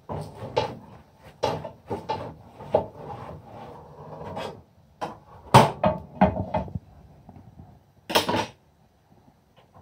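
Kitchen handling noises: a frying pan and utensils knocking and clattering on a counter, a run of sharp knocks, loudest about halfway through, then a short scraping rush just after eight seconds.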